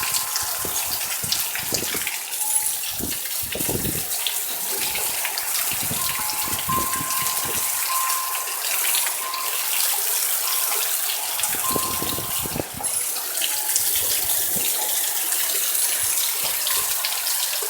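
Very heavy thunderstorm rain pouring down in a steady, loud hiss. Low rumbles come through a few seconds in and again around twelve seconds in, from strong wind gusts or thunder.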